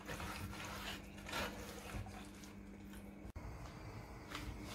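Quiet kitchen room tone: a faint steady low hum with a few soft, light clicks.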